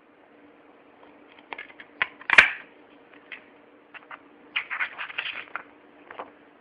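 Plastic DVD case being handled and opened: scattered clicks, one loud sharp snap a little over two seconds in, then a quick run of clicks and rustling near the middle to end, over a faint steady hum.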